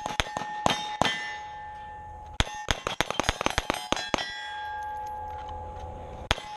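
Pistol shots fired in quick strings: a few scattered shots, then a fast burst of about twenty a little over two seconds in, then a lone shot near the end. Struck steel targets keep up a metallic clanging ring under the shots.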